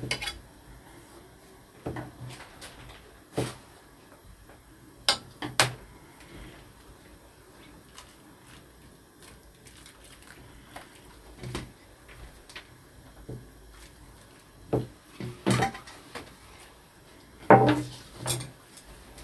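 Scattered knocks and clinks of kitchenware, a metal tray and a pan on a portable gas stove, as fresh noodles are handled and moved into the pan of water. There are about ten separate knocks, with a cluster of louder ones near the end.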